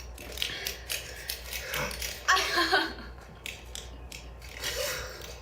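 Rapid, irregular clicking and clattering, with a short cry from a voice about two seconds in.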